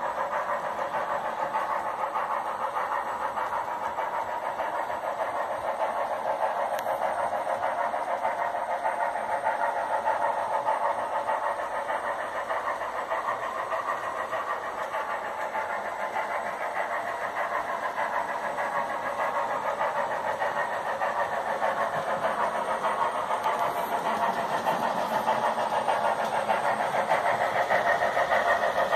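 HO scale model trains running on the track: a steady whirr of small motors and wheels rolling on rail, growing louder near the end as a train passes close by.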